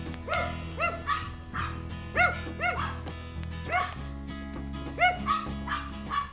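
Chihuahuas yapping, about a dozen quick high-pitched barks in irregular bursts, over background music with steady low tones.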